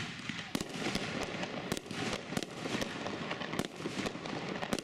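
Aerial fireworks bursting overhead: an irregular rapid string of sharp bangs, about a dozen, over a continuous rushing noise.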